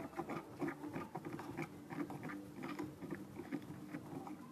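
Slime being stirred and squished with water, making a run of quick, irregular wet clicks and squelches.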